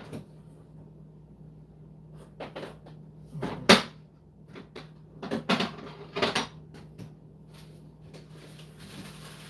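Kitchen rummaging: cupboard-type doors and containers being handled, heard as four groups of knocks and clunks, the loudest a little before halfway, over a steady low hum.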